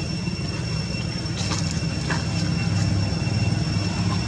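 A steady low motor rumble with a constant high whine above it, and a couple of faint short chirps about one and a half and two seconds in.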